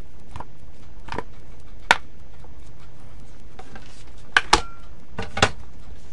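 Raw chicken drumsticks being set down one at a time in an aluminium pan: about seven short knocks and clinks, the last few in quick pairs, over a steady low hum.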